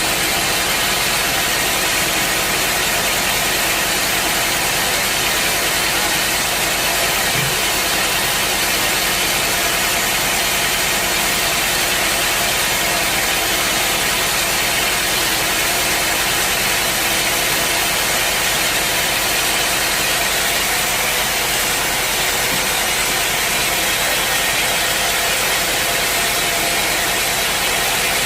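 Sawmill machinery running with a loud, steady drone and hiss that does not change.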